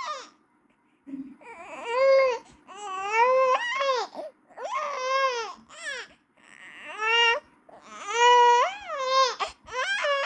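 Baby crying in a run of wails, about six, each rising and falling in pitch, with short gaps between them.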